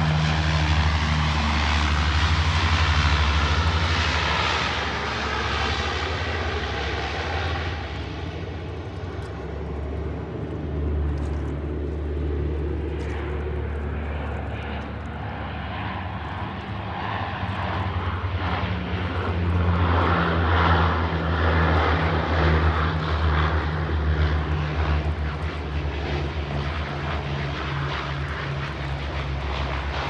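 Propeller engines of an amphibious water bomber droning steadily. The drone is loudest in the first few seconds, eases off, then swells again about two-thirds of the way through.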